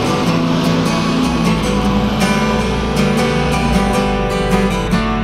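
Acoustic guitar strummed in a steady rhythm, chords ringing with no singing.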